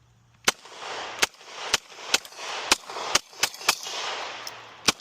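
Kriss Vector .45 ACP carbine fired in quick semi-automatic succession, about nine shots at uneven intervals roughly half a second apart, each followed by a long echo.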